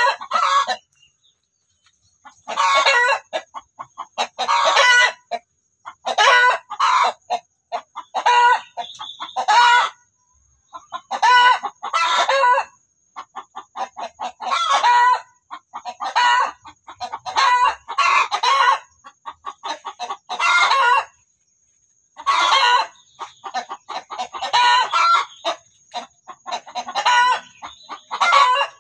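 Domestic chickens, a rooster among them, calling in loud bursts of about a second each, often in pairs, repeating every two seconds or so.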